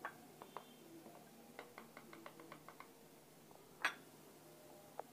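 Faint clinks and scrapes of a metal spoon against a clay pot of sweet curd and a glass plate as curd is spooned out, with a quick run of light ticks midway and one sharper clink a little before four seconds in.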